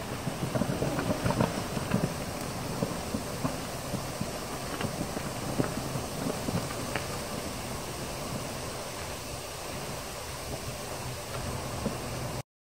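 Fermenting pineapple mash fizzing and crackling as gas bubbles rise and pop through its foam, with the crackles thickest in the first couple of seconds. The sound cuts off suddenly near the end.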